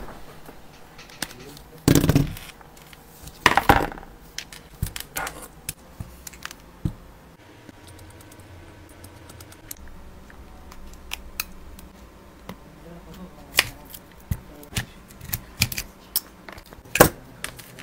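Small metal tools and phone parts clicking and tapping on a workbench as an iPhone is taken apart with a precision screwdriver, with a few louder knocks about two and three and a half seconds in.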